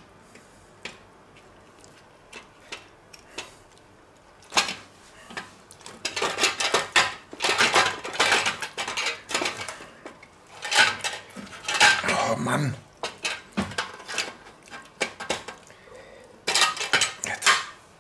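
Metal tongs scraping and clinking against a stainless-steel roasting tray while a roast chicken is pulled apart. A few light ticks at first, then irregular clattering from about four seconds in, pausing briefly before a last flurry near the end.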